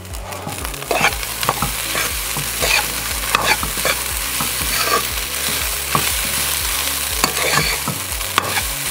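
A steel spoon stirring and tossing rice through fried onions in a pan, scraping against the pan about twice a second, over the steady sizzle of hot oil.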